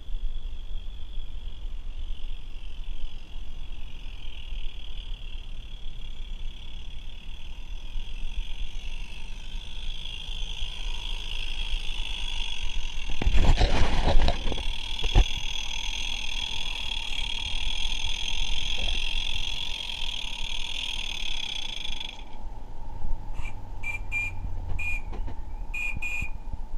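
Insects buzzing in a steady high-pitched chorus over a low steady rumble. About halfway through there is a brief loud rustle as the camera is moved. Near the end the chorus stops abruptly and a few short high chirps follow.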